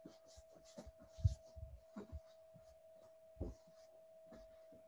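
Faint soft thumps and rustling of a person getting down onto a yoga mat on a rug and lying back on it, with a few heavier low bumps as the body meets the floor. A faint steady tone runs underneath.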